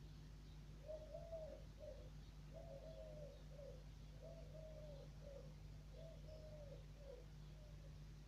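A dove cooing, the same short phrase about four times, faint, over a steady low hum.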